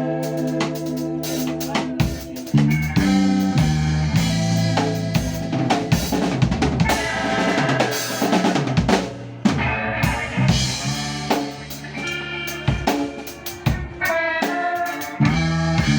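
Band music, drum kit to the fore with snare and bass-drum hits and rimshots, over sustained guitar and bass notes.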